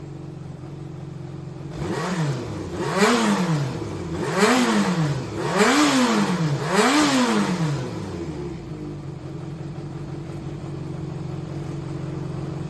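Yamaha XJR400 air-cooled inline-four engine idling steadily, then revved five times in quick succession, each blip rising and falling back, before settling to idle again. The engine runs smoothly, which the seller describes as free of abnormal noise.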